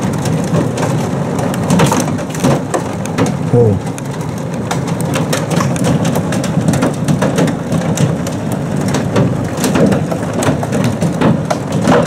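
Hail pelting down with rain: a dense, loud clatter of many hailstones striking hard surfaces.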